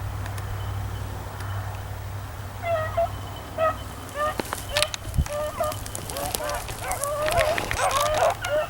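Beagles baying on a rabbit's trail: short yelping bawls start a few seconds in, then build into several hounds giving tongue at once, louder near the end. Scattered sharp clicks come through alongside.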